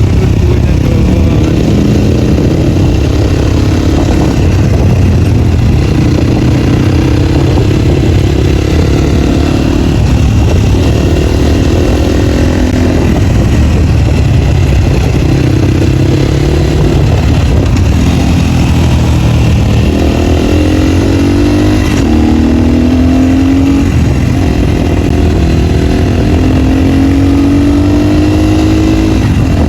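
Dirt bike engine running without a dB killer, loud and steady, its pitch rising and falling with the throttle. In the last third it climbs in several rising sweeps as the bike accelerates.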